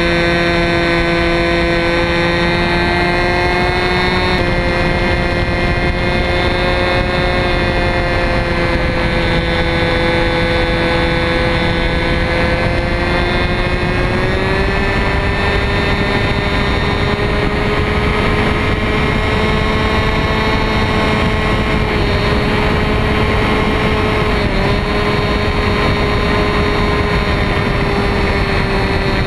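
The two-stroke glow engine of an RC Telemaster model plane running at flying speed, recorded from a camera mounted under the plane. It is a steady high buzz whose pitch climbs a little about halfway through and dips briefly about five seconds before the end.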